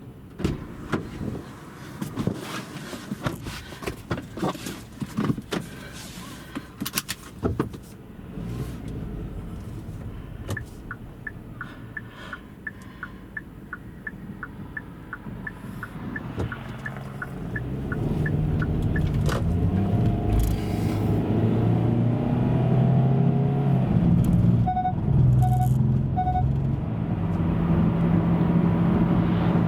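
Car interior sounds. First come scattered clicks and knocks of handling inside the cabin, then a steady ticking of about four clicks a second like a turn-signal relay. After that the car's engine picks up and pulls away with rising pitch, with three short chime beeps partway through.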